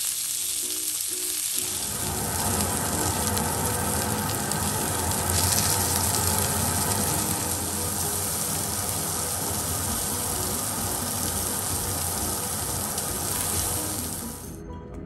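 Strip loin beef searing in hot olive oil in a pan, the oil sizzling steadily, with background music coming in under it about a second and a half in. The sizzle stops shortly before the end.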